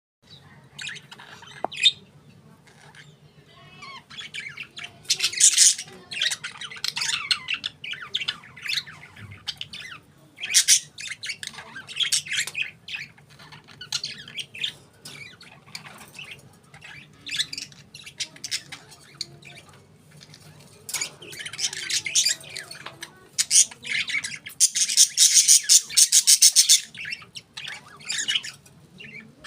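Budgerigars (parakeets) chirping and squawking in irregular bursts, with a longer, louder run of rapid chatter near the end.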